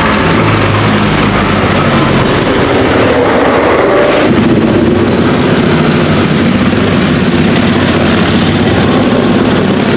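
Yamaha scooter on the move: steady wind rushing over the microphone with the engine running underneath, its note shifting about four seconds in.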